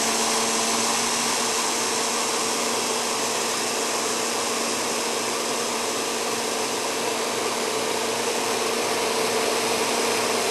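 Vacuum cleaner motor running steadily: an even whooshing rush with a steady hum under it.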